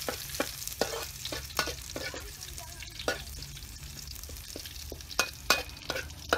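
Metal spatula scraping and clinking against a metal wok while stirring food frying in hot oil, over a steady sizzle. The clinks come irregularly, about two a second, with two sharper ones a little after five seconds in.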